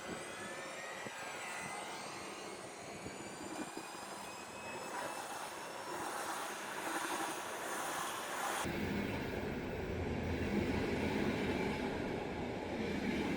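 Electric train at a railway station: a high motor whine made of several tones that glide in pitch, then about two-thirds of the way through an abrupt change to a steadier, deeper rumble of a train running.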